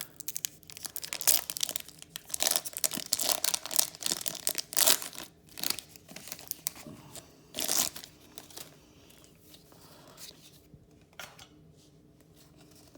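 Foil wrapper of a Pokémon booster pack being torn open and crinkled by hand, a run of sharp crackles and rips that dies down to faint rustling after about eight seconds.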